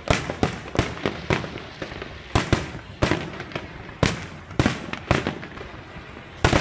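Fireworks display bursting: a rapid, irregular run of sharp bangs and crackles, one to three a second, each echoing briefly.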